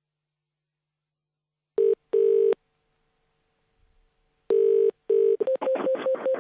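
Australian telephone ringback tone heard down the line: a double ring, a pause, then a second double ring, the caller waiting for the other end to pick up. Near the end the call is answered and sound comes over the line.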